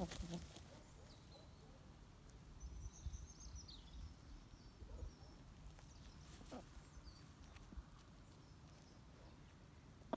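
Quiet outdoor background of a small flock of hens, with a couple of soft clucks and, from about one to four seconds in, faint high chirping of a small bird.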